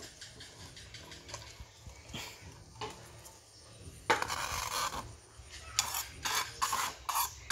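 Cooked rice being scraped off a plate into a metal pan: a loud rasping scrape about four seconds in, then several shorter scrapes and knocks.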